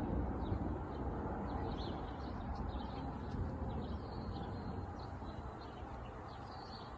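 Small birds chirping repeatedly in short, falling notes over a low rumble that slowly fades.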